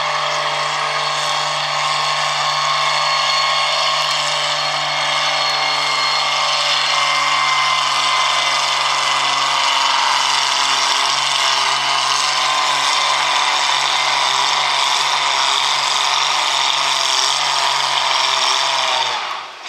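Farm tractor engine at full throttle under load, pulling a weight sled, with a steady pitch that sags a little about halfway through and then drops off abruptly near the end as the pull ends.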